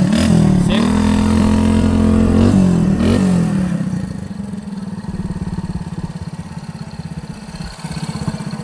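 Honda Win 100 single-cylinder motorcycle engine revved up and down a few times, then dropping back to a steady idle about four seconds in.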